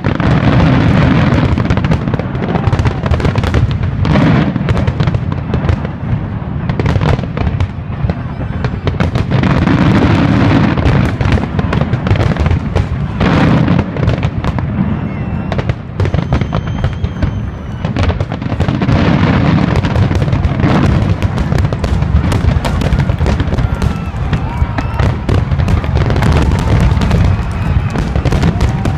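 Large aerial fireworks display: a dense, unbroken barrage of booms and crackling bursts over a continuous low rumble. A few thin whistling tones come through about halfway through.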